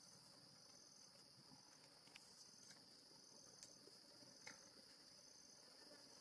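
Faint, steady high-pitched insect chirring, with a second trill just above it that pulses on and off, and a few faint ticks.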